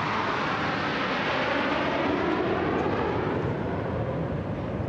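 Military jet aircraft flying past overhead: a steady rush of jet engine noise whose tone sweeps slowly down and back up as the aircraft pass.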